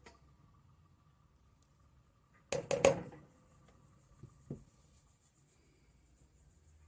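Quiet room with a quick clatter of three sharp knocks about two and a half seconds in, then two soft taps a second or so later.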